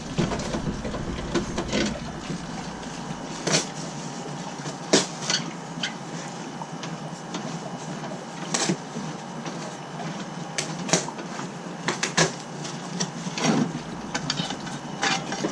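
Scattered, irregular clicks, clinks and knocks of hand tools working on metal plumbing fittings, with no steady machine sound.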